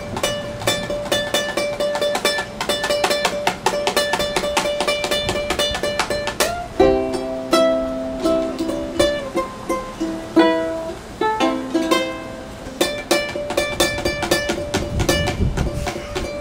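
Ukulele played with rapid, repeated picking of single notes. About seven seconds in it changes to a few slower, ringing chords, and about four seconds later the fast picking returns. The player means the picking to evoke falling raindrops.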